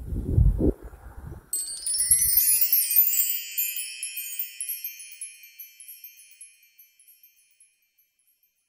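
Low rumbling, then a cascade of high chime tones that starts suddenly about a second and a half in. Many notes ring together and fade away over about six seconds.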